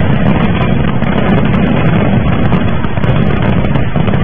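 A stash of firecrackers burning off on a porch: a steady, loud rushing noise with scattered sharp crackles and no single big bang standing out.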